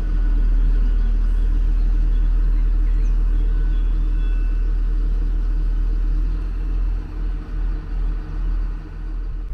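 Diesel engines of a DB class 643 (Bombardier Talent) diesel multiple unit running with a steady low rumble, wavering in level over the last few seconds.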